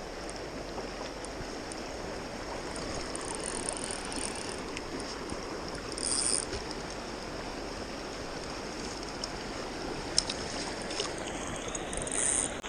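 River water running steadily, with a couple of brief hissy splashes and a sharp click.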